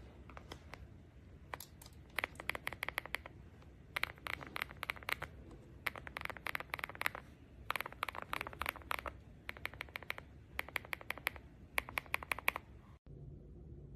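Typing on a mechanical keyboard with SWK Catmint linear switches: runs of rapid keystrokes in groups every couple of seconds, stopping suddenly about thirteen seconds in.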